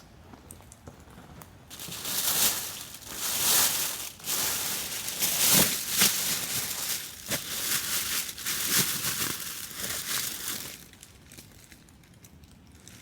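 Crinkling and rustling of material being handled, in irregular bursts with a few soft knocks, stopping about eleven seconds in.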